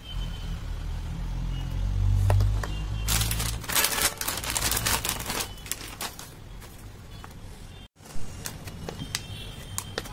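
A plastic blister pack crinkling and crackling as it is handled, loudest for about two seconds in the middle, followed by scattered small clicks and taps. A low rumble sits under the first few seconds.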